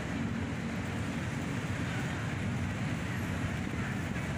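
Steady low rumble of city road traffic, an even background hum with no distinct events.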